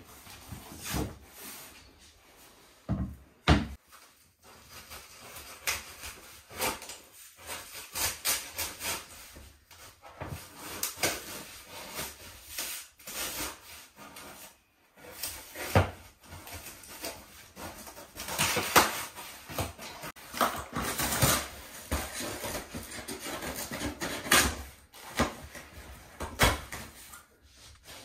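Unpacking and handling flat-pack bed-frame parts and their cardboard box: irregular knocks of panels and wood, with stretches of cardboard rustling and scraping, densest in the second half.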